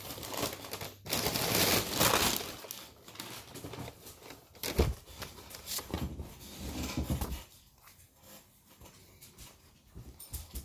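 Packaging crinkling and rustling as a clothing shipment is opened and a folded garment is pulled out, with fabric brushing close to the microphone. The rustling is loudest in the first couple of seconds and turns softer and more scattered about halfway through.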